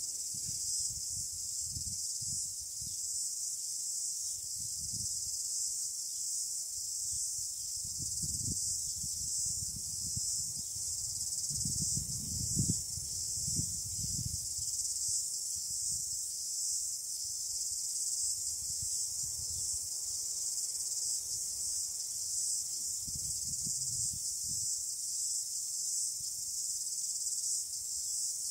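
A steady, high-pitched chorus of crickets, many insects overlapping into one continuous shrill hiss. Under it, wind rumbles on the microphone in irregular gusts.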